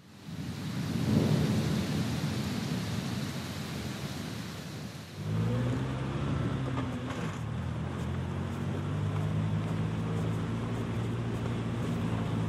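Rumbling thunder with a steady rain-like hiss. About five seconds in, a car engine comes in suddenly, rises in pitch as it revs, then runs steadily.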